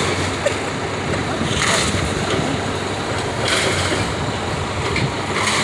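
Caterpillar excavator's diesel engine running steadily while it works a demolition debris pile, with a louder rush of noise about every two seconds.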